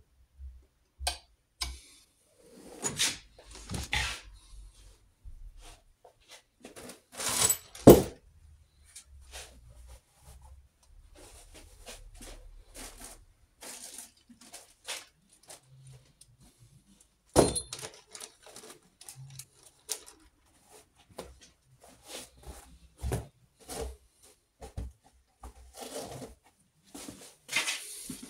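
Workbench handling noises: tools and small metal parts clicking, knocking and clattering at intervals, with the two loudest knocks about eight and seventeen seconds in.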